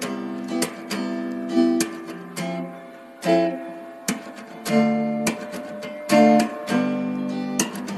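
Background music: acoustic guitar strumming chords, each stroke ringing and dying away.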